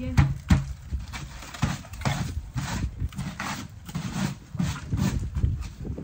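Snow-packed green plastic bin being handled and knocked: a run of crunching scrapes and dull knocks, about two a second.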